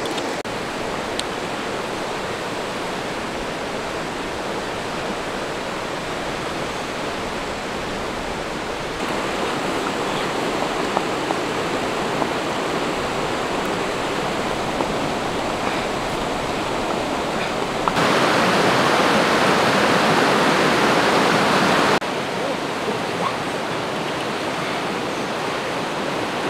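Rushing water of a rocky stream's rapids, a steady hiss that changes level in steps and is loudest for about four seconds past the middle.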